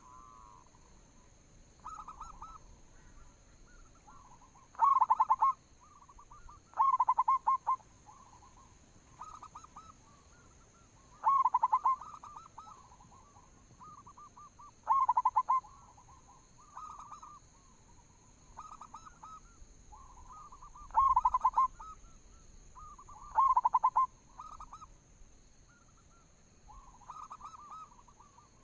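Zebra doves cooing: short phrases of quick staccato notes repeated every one to three seconds, with louder phrases every few seconds among fainter ones.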